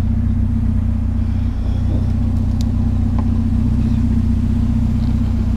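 Truck engine idling steadily, a low even drone with no revving.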